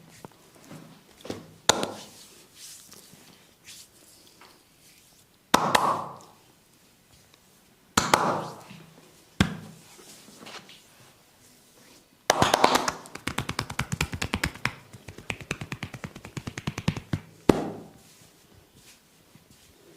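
Massage strikes with the hands on the body. A few single sharp slaps come some seconds apart, then a fast, rhythmic run of percussive tapping lasts about five seconds and ends with one more slap.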